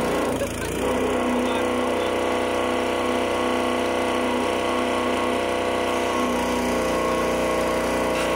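Small gasoline engine of a truck-mounted water pump running steadily under load, with water hissing out of a fire-hose nozzle.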